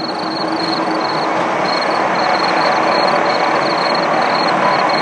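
Pilatusbahn electric rack railcar running on the rack line, a steady rushing rumble that grows slowly louder. A short high tone pulses over it several times a second.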